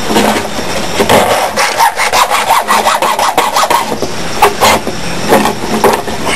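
Small hand saw cutting into split PVC pipe with quick back-and-forth strokes, about three a second. A brief pause comes in the middle, then a few more strokes.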